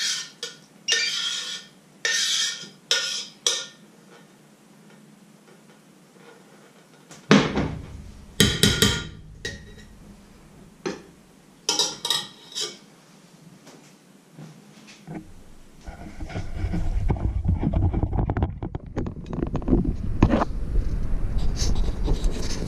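A metal spoon scraping and clinking against a steel cooking pot and a ceramic plate as food is served, in several short bursts. About two-thirds of the way through, a continuous low rumbling and rubbing starts: the camera being picked up and handled.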